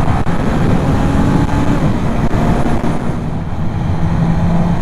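Motorcycle engine running under way, its pitch shifting up and down and then holding steady in the second half, over heavy wind rumble on the rider's microphone.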